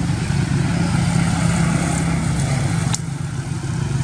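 A motor vehicle engine running steadily, a low hum, with a sharp click about three seconds in, after which it drops a little.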